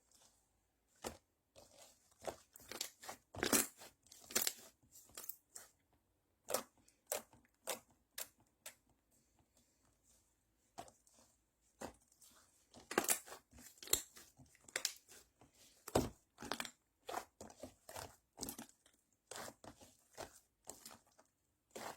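Slime being squeezed, poked and stretched by hand, giving irregular sticky clicks and pops.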